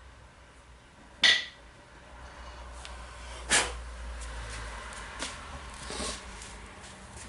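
Metal parts of a cordless drill's gearbox being handled and set down: two sharp clicks, about a second and about three and a half seconds in, then a few lighter clicks over faint rustling.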